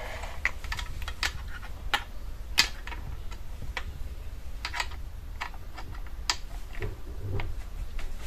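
Light, irregular clicks and taps of a USB cable plug being worked into the emergency power port at the bottom of a smart door lock's keypad, over a faint low hum.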